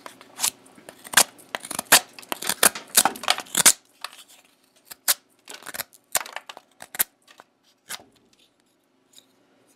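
Benchmade Mini Griptilian folding knife blade cutting into wood in a run of short, sharp strokes. The strokes come several a second at first, then thin out and stop about eight seconds in.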